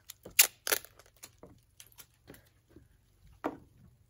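Paper crinkling and tearing in the hands, likely the release backing from self-adhesive flashing: a scatter of short crackles. The loudest come about half a second in, with another a little before the end.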